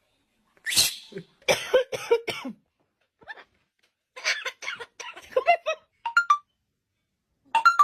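Parrot mimicking coughing: a series of short, raspy cough-like bursts in several groups, ending with a couple of brief whistled notes.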